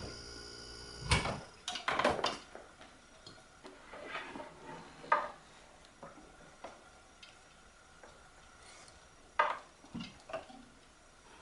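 Refrigerator compressor humming steadily, then cutting off about a second in with a loud click. Scattered clinks and knocks of metal parts being handled follow.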